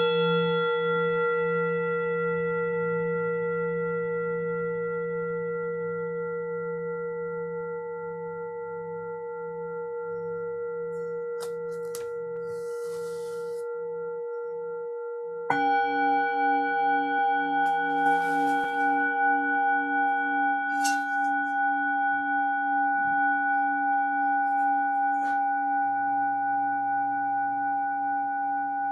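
Himalayan singing bowls ringing. One bowl, struck just before, rings with a slow wavering beat and slowly fades. A second, higher-pitched bowl is struck about fifteen seconds in and rings on.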